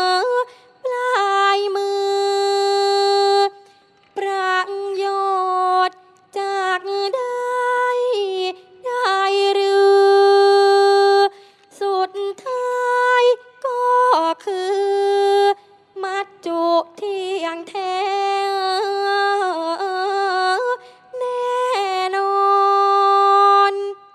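A female singer sings a Thai classical song in phrases of long held notes with wavering, ornamented turns between them, pausing briefly for breath between phrases.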